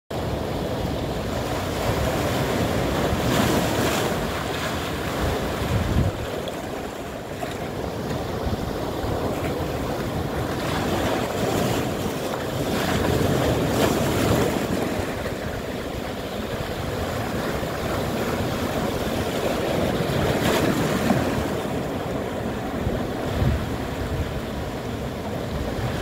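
Ocean surf breaking over shoreline rocks: a continuous wash of waves, with louder crashes and splashes every several seconds.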